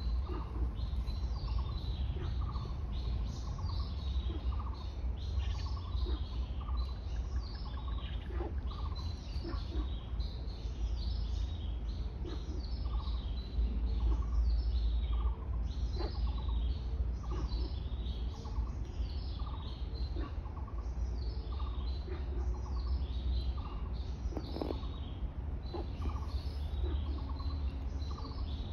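Several wild birds chirping and calling, with many quick high chirps and a lower note repeated roughly every second, over a steady low rumble.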